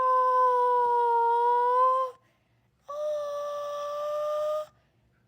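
A high-pitched wailing note held steady for about two seconds and cut off abruptly. After a brief gap a second, similar note is held for about two seconds.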